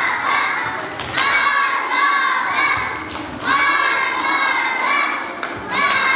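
A group of children shouting together in unison, a long drawn-out call repeated about every two and a half seconds, calling for a guest to come out.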